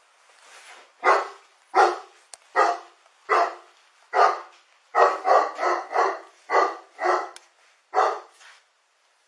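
A dog barking repeatedly, about a dozen loud barks, several coming in a quick run partway through.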